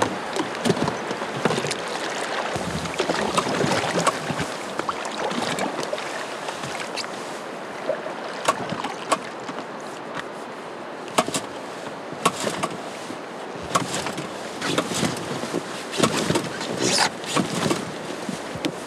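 River water flowing and lapping around an inflatable boat, with sharp knocks and clicks scattered through the second half as gear and the outboard motor are handled; the motor does not run.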